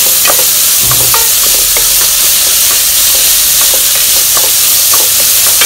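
Basmati rice frying in oil in a pot, a steady sizzle, while a wooden spoon stirs it, giving scattered short scraping clicks against the pot.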